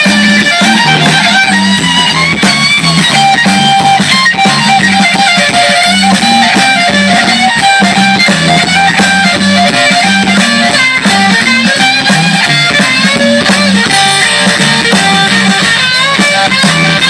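Live blues band playing loud, led by guitar over a steady bass line, heard through large outdoor PA speakers.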